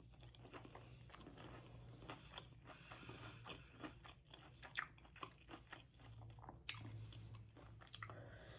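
Faint chewing of a crispy fried chicken tender, a steady run of small irregular crunches and crackles from the breading.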